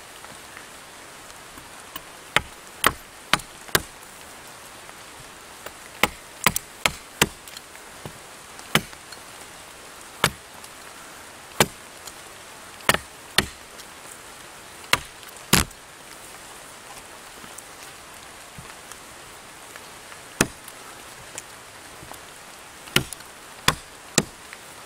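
A billhook chopping into a thin wooden stick: about twenty sharp, separate strikes, some single and some in quick runs of two to four, over a steady hiss.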